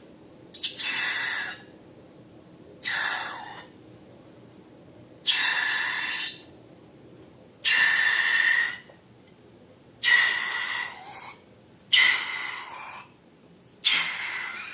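Air hissing out of a balloon in seven short bursts, each about a second long, roughly every two seconds, with a faint whistle in each.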